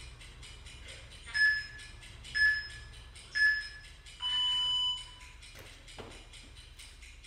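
Interval-timer countdown beeps: three short electronic beeps a second apart, then one longer, lower beep, the signal that the next work interval starts, over background music.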